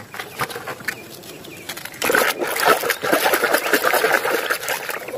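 A hand swishing and scrubbing a muddy plastic toy vehicle in a basin of muddy, foamy water, splashing from about two seconds in. Before that come a few light knocks of plastic toys against each other.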